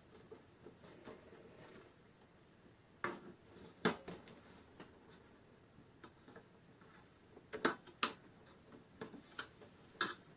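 Scattered small clicks and taps of hand tools and loose parts while an old synchronous clock's movement is being taken apart. They come at irregular moments, the sharpest about three and four seconds in, a pair around eight seconds, and one just before the end.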